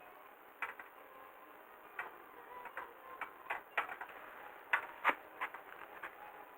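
A series of irregular sharp clicks and light knocks, about a dozen, with the two loudest close together about three-quarters of the way through.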